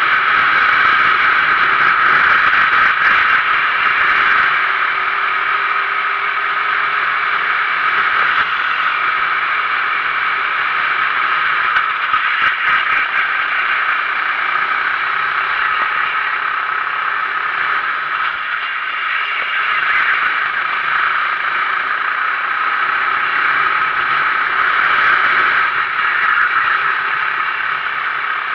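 Onboard sound of a Sodi RT8 390cc kart at racing speed: a loud, steady rush of engine and wind noise.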